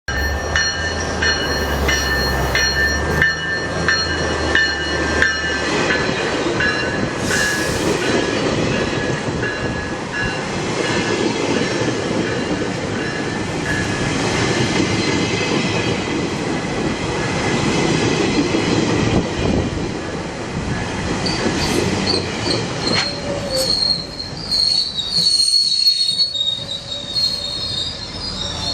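GO Transit commuter train pulling in and slowing: steady rumble of the cars on the rails with held squealing tones from the wheels and brakes, a higher, louder squeal in the last few seconds as it nears a stop.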